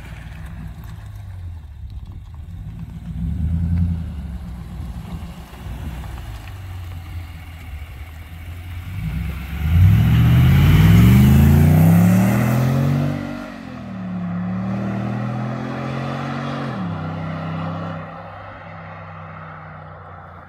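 Nissan Y62 Patrol's 5.6-litre V8 through a 3-inch stainless cat-back exhaust with an oval muffler, the quietest of the Redback sound options: a low idle with a short blip, then about ten seconds in it pulls away hard with the pitch rising, drops at a gear change, runs on steadily and fades as it drives off into the distance.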